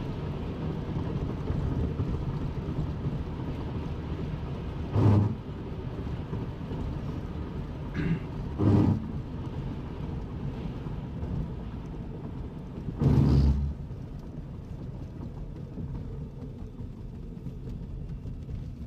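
Thunderstorm field noise: a steady low rumble of wind, with four short, louder bursts about five, eight, nine and thirteen seconds in.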